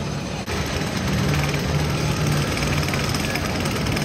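Wooden roller coaster train climbing an inclined stretch of track: a steady low mechanical hum with fast, even clacking. The sound steps up abruptly about half a second in.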